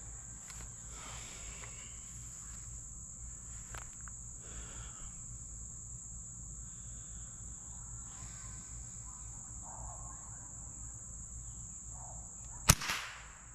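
A steady high-pitched insect drone runs throughout. About a second before the end comes a single sharp crack: a shot from a .22 Long Rifle rifle.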